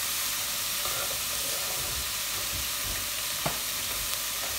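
Shredded savoy cabbage, onion and bacon sizzling steadily as they fry in butter in a nonstick pot, with a silicone spatula stirring through them. A single light knock about three and a half seconds in.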